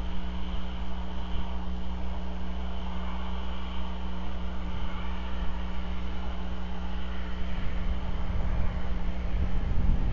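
Steady outdoor background rumble with a constant electrical hum through the nest camera's microphone; a deeper rumble swells near the end.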